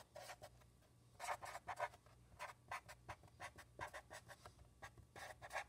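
Faint strokes of a felt-tip marker writing on paper: short scratchy strokes in small bursts with pauses between them.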